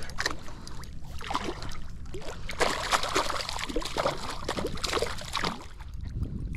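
Water splashing and sloshing at a fishing kayak in irregular bursts, while a hooked jack crevalle is fought alongside.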